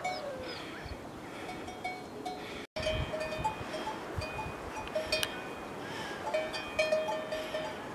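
Metal bells on livestock clinking irregularly in short, clear ringing notes, with a short falling animal call right at the start. The sound breaks off briefly about a third of the way in.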